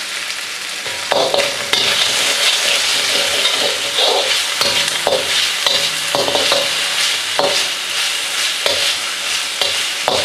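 Marinated chicken pieces sizzling in hot oil in a wok, stirred with a metal perforated spatula. From about a second in, the spatula scrapes and clinks against the pan with a brief ring, roughly once a second.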